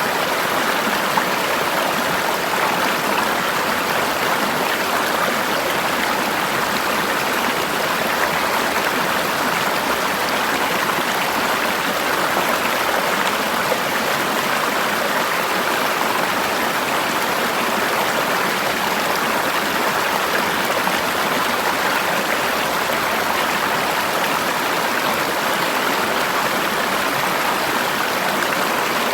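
Forest river water flowing steadily: an even, continuous rushing and babbling.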